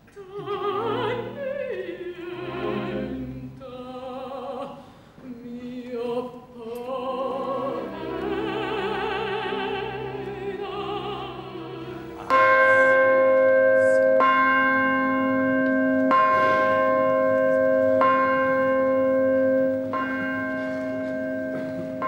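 Operatic singing for about twelve seconds, then the Zürich Opera House's new bronze church bell in C, cast by the Rüetschi foundry, struck five times about two seconds apart, each stroke ringing on into the next.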